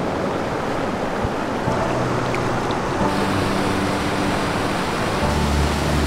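Rocky mountain stream rushing and splashing over boulders, a steady roar of white water, with soft background music of slow held chords underneath.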